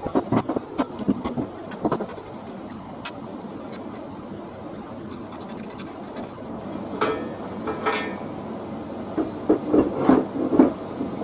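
Irregular knocks and clinks of hand tools and metal parts being worked on a bicycle, in clusters with short pauses between.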